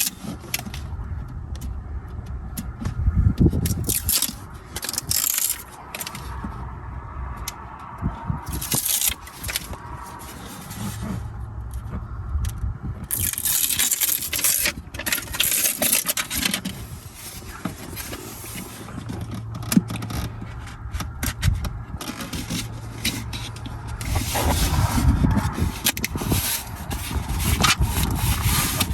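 Hands working in a plastic truck center console: irregular scraping, rustling and clicking as an adhesive foam spacer has its backing peeled and is pressed into place, with some rattling of plastic parts.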